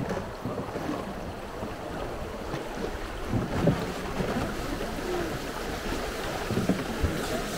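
Mountain river water flowing and splashing around a raft, with wind buffeting the microphone as a low rumble.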